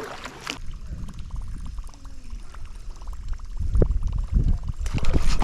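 Water sloshing and splashing close to the microphone, with low rumbling and a few knocks that grow louder in the second half.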